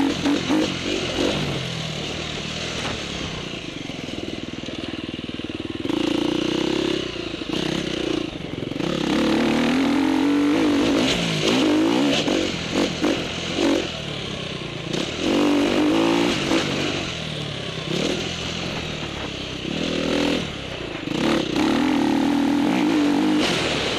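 KTM 350 dirt bike engine ridden hard around a motocross track, heard close up from an onboard camera. The engine note climbs and drops again and again as the throttle is opened and rolled off, with loud full-throttle runs around 6 s, 11 s and near the end and quieter stretches between.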